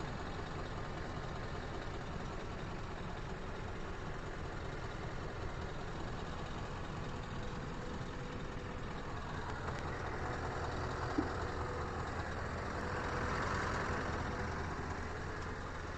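Scania R560's V8 diesel engine idling steadily, heard from inside the truck's cab.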